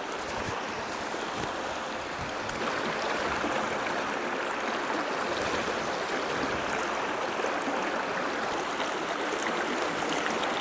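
Mountain stream running over rocks: a steady rush of water, a little louder from about two and a half seconds in.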